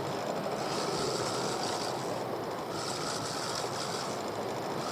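Steady wind and sea noise around a small boat at sea, with no distinct events.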